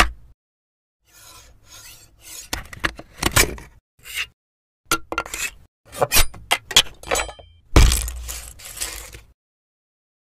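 Hard plastic snapping and crunching in an irregular run of sharp cracks and clicks, with one sharp click at the start and the loudest crack about eight seconds in, followed by crackling.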